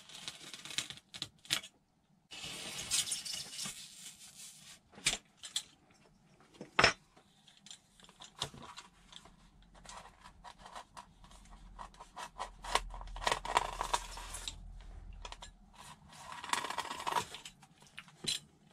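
Snap-off craft knife scoring and slicing through a foam glider wing in small shallow strokes: a dry scratchy rasp in several stretches of a second or two, with scattered small clicks and taps. One sharp click about seven seconds in.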